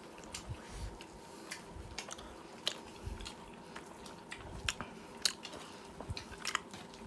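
A person eating: chewing with scattered sharp clicks and light clinks of tableware, over a faint steady hum.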